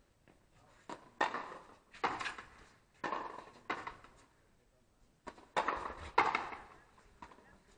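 Frontenis rally: sharp cracks of the hollow rubber ball off the strung rackets and the frontón wall, about one a second, each with a short echo, with a brief lull a little past the middle.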